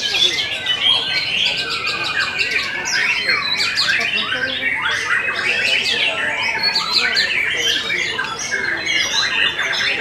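White-rumped shama (murai batu) singing a dense, continuous stream of rapid chirps, rising and falling whistles and fast trills.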